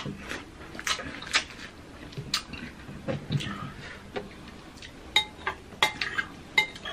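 A metal spoon clinking and scraping against a glass mixing bowl of whipped cream, with about half a dozen sharp, ringing clinks in the second half. Before that come softer crackles of an orange being peeled by hand.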